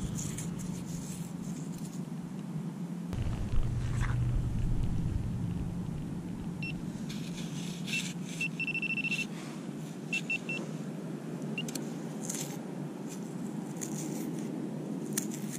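Orange Garrett Pro-Pointer pinpointer probe giving a high, thin beep in short broken stretches about halfway through, the alert that the probe is close to buried metal in the sand. A few soft scrapes of sand being handled, over a steady low hum.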